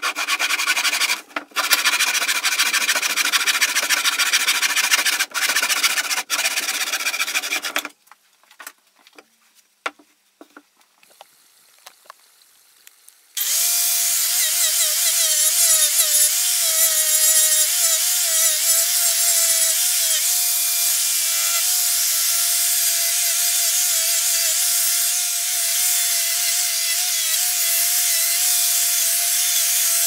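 Hacksaw cutting through an old, weathered wooden board in rapid strokes for about eight seconds. After a few seconds of light knocks, an angle grinder starts and works the weathered wood for the rest of the time, its whine wavering at first and then holding steady.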